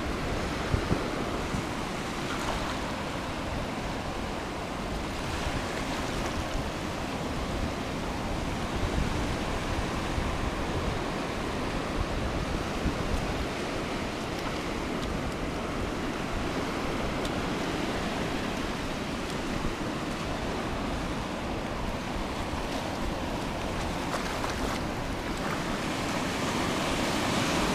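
Ocean surf washing up over wet sand at the water's edge, a steady rush of breaking and receding waves.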